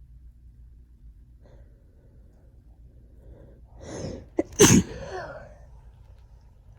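A woman with a cold sneezing once: a gasping in-breath builds for about half a second, then comes a single sharp sneeze a little past the middle, fading quickly.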